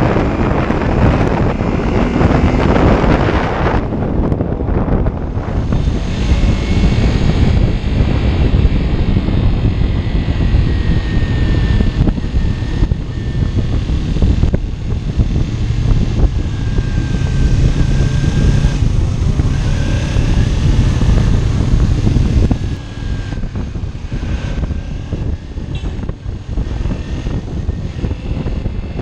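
Wind rushing over a helmet-mounted microphone, with a Kawasaki Ninja 300's parallel-twin engine running under it at a steady road speed. The rush eases a little about three-quarters of the way through.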